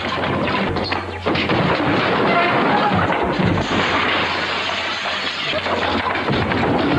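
Crashes and thuds of a staged slapstick fight: bodies being thrown into chairs and a wooden conference table breaking and collapsing, with music playing under it.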